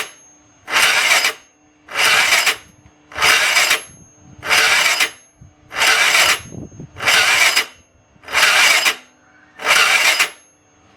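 Piaggio X9 scooter's electric starter cranking in eight even noisy bursts, about one a second, without the engine catching. The uploader takes this for a flat battery and a slow Bendix drive on a bad starter.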